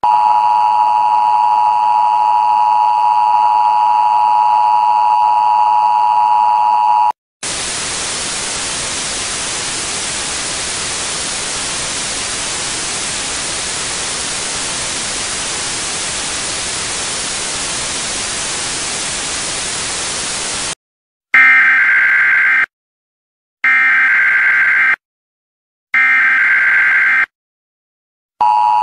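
Emergency Alert System broadcast signals: the two-tone attention signal held for about seven seconds, then a steady hiss of TV static. Then come three short bursts of digital data tones about a second apart, the SAME header, and the two-tone signal starts again at the very end.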